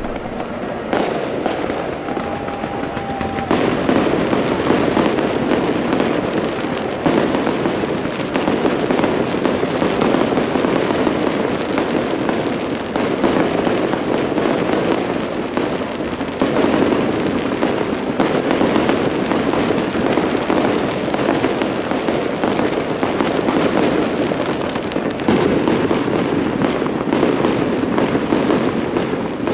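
Aerial fireworks show: shells bursting overhead one after another without a break, a continuous run of booms, pops and crackle, with a short steady whistle about two seconds in.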